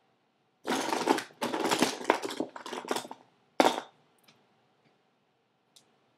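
Handling noise from lip gloss being opened and applied close to the microphone: a couple of seconds of rustling and scraping, then one sharp click about three and a half seconds in, followed by a few faint ticks.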